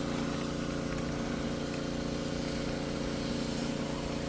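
A motor or engine running steadily, a constant even hum.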